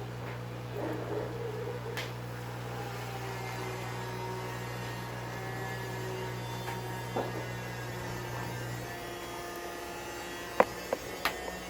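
Steady low electric hum from bench equipment, which dies away about nine seconds in, followed by a few sharp clicks near the end.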